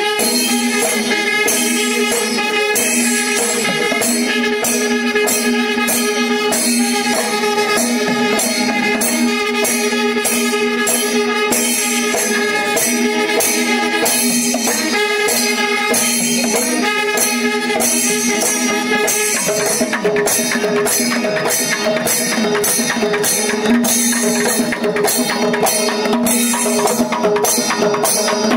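Kerala temple percussion ensemble (chenda melam): chenda drums and clashing hand cymbals in a fast, dense rhythm over a steady held wind-instrument tone. The drumming grows denser about two-thirds of the way through.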